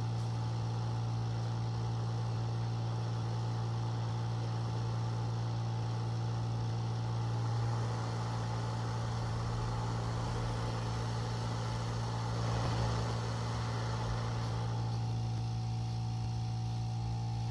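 A steady low mechanical hum, with a hiss that swells from about eight seconds in and eases off near fifteen seconds.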